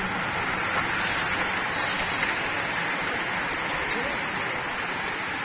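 A large bunch of road racing bicycles rolling past close by: a steady hiss of many tyres on asphalt and whirring drivetrains.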